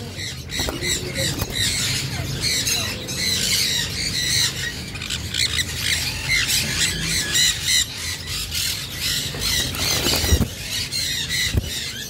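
A cage full of Indian ringneck parakeets squawking and chattering without pause, many short harsh calls overlapping. A single knock comes about ten seconds in.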